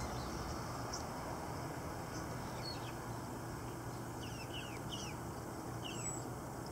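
Steady wind noise, with a few short, high, falling bird chirps in the second half.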